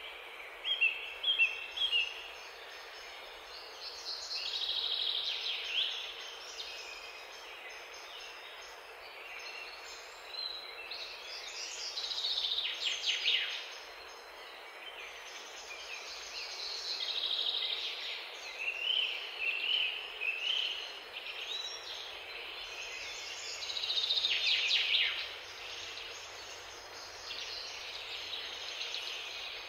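Small songbirds singing short, high-pitched phrases every few seconds over a steady background hiss.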